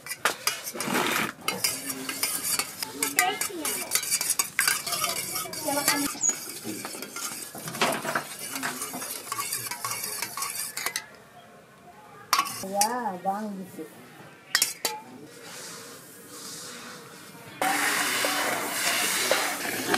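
A metal spoon beats and stirs raw eggs in a steel tiffin box, with quick clinks and scrapes against the steel. About two-thirds through it goes quieter. Near the end comes a steady rustling scrape of paddy grain being pushed with a wooden board.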